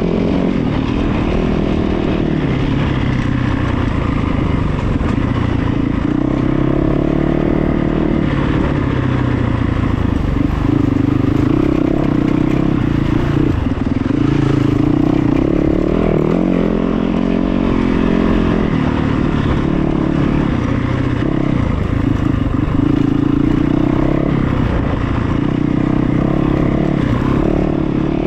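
A motor engine running continuously, its pitch rising and falling every few seconds as the revs change.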